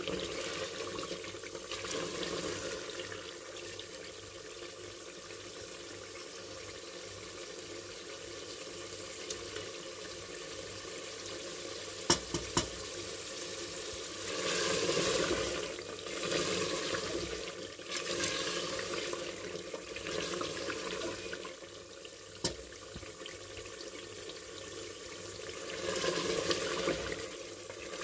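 Mutton in masala sizzling in an aluminium pressure cooker pot during the bhuna (browning) stage, with a wooden spoon stirring and scraping through it in several louder swells. A few sharp knocks of the spoon against the pot, about twelve seconds in and again later.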